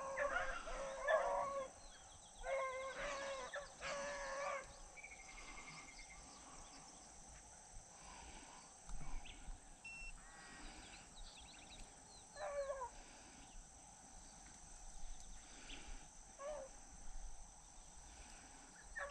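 Beagles baying, faint: a run of long, drawn-out howling bays in the first five seconds, then single bays about 12 and 16 seconds in. This is hounds giving voice on a rabbit's scent trail, the chase under way.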